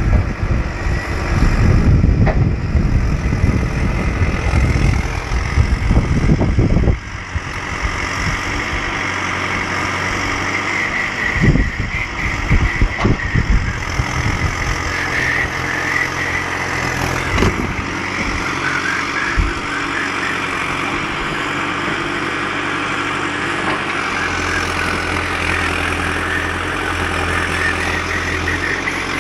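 Volvo BM EL70 backhoe loader's diesel engine running while the machine digs on a slope, heavy and rough for the first several seconds, then steadier. A few knocks about halfway through.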